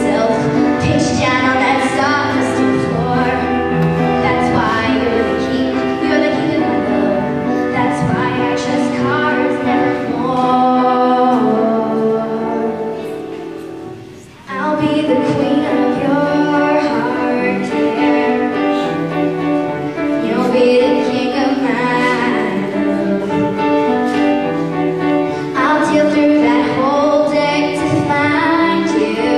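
A girl singing a slow song while accompanying herself on an upright piano. Just before the middle the music dies down for a moment, then comes back abruptly.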